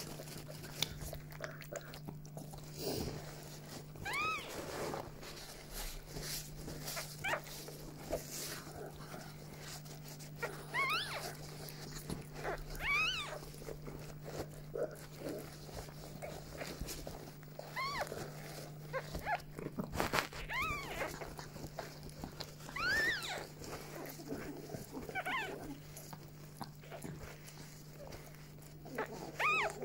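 Newborn chihuahua puppy crying in a string of short, high squeals, each rising and falling in pitch, every few seconds. A steady low hum runs underneath.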